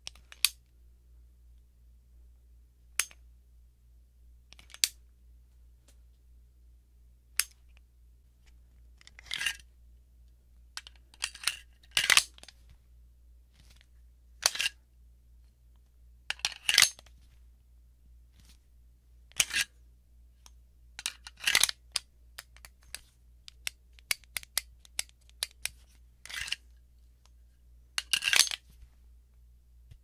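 Springfield Armory 1911 Garrison pistol handled dry, snap caps only: a few sparse metallic clicks, then clusters of sharp clacks and rattles as the steel magazine is worked in and out of the grip, and later a quick run of clicks from the grip safety being squeezed and released.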